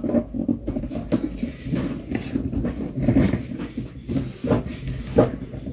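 Large cardboard appliance box being handled and turned over: the cardboard rubbing and rustling, with a few light knocks, the clearest near the end.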